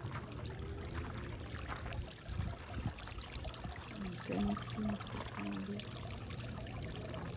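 Backyard garden waterfall: water steadily pouring and trickling over rocks into its pool.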